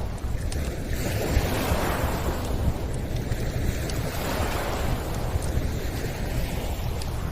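Gentle lake waves washing onto the shore in slow swells about every two seconds, over a low steady rumble, with a few faint campfire crackles.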